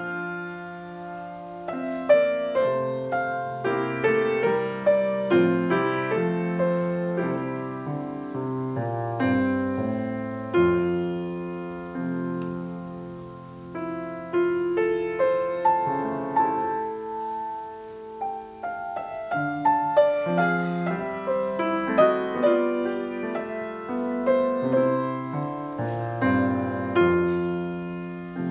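Grand piano played solo: a classical piece in flowing phrases, notes struck and left to ring, swelling and easing in loudness.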